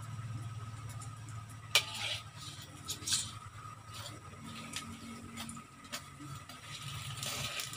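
Kitchen background noise: a steady low hum with scattered sharp clicks and clinks.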